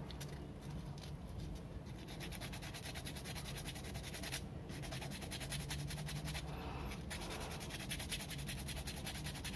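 Rapid, rhythmic scratching of a hobby blade scraping a small white plastic rod, shaving it into a ball joint.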